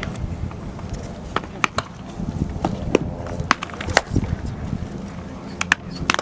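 Baseball practice sounds: about a dozen sharp knocks and pops, scattered irregularly, over a steady low rumble.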